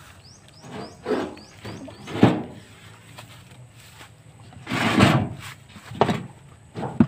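Irregular knocks and thumps of fishing gear and a basket being handled, with a louder rustling scrape about five seconds in. A quick run of faint high chirps comes in the first second.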